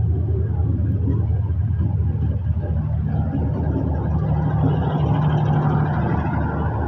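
Bangladesh Railway passenger coaches rolling past close by: a loud, steady rumble of wheels on the rails, with a steady low hum joining in about three seconds in.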